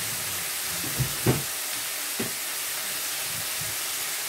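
Sliced bell peppers, onion and garlic sizzling in a stainless steel sauté pan, a steady hiss, with a few light knocks about a second and two seconds in.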